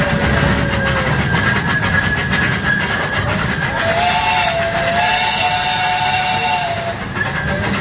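Ride train's whistle blowing two notes together with a hiss: a short blast about four seconds in, then a longer one of nearly two seconds. Under it, the steady rumble of the train running.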